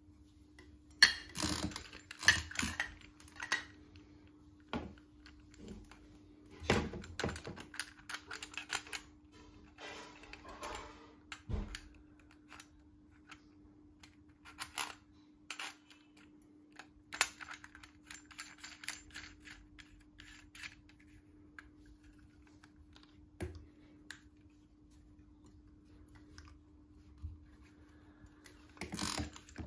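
Brass rods and brass lamp sockets being handled and fitted together by hand: irregular light clicks, taps and small metallic rattles, in clusters near the start and again near the end, over a faint steady hum.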